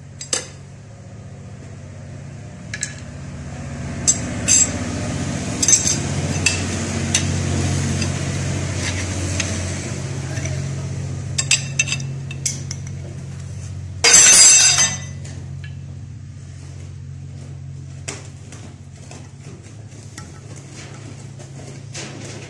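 Metal tools and parts clinking against the cast gearbox casing of a Yağmur 510 single-axle tractor while its gear-shift mechanism is taken apart, as a dozen or so scattered sharp clinks over a steady low machine hum. About fourteen seconds in comes a louder burst of noise lasting about a second.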